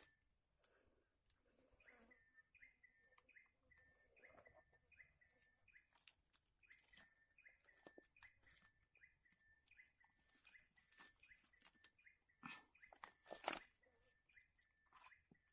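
Faint outdoor animal calls: a short chirp repeated two or three times a second over a steady high-pitched hiss, with a few scattered knocks, the loudest near the end.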